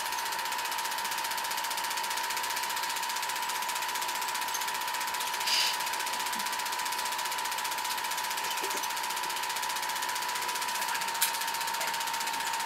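Film projector running: a fast, even mechanical clatter with a constant whine. There is a short hiss about five and a half seconds in and a sharp click near the end.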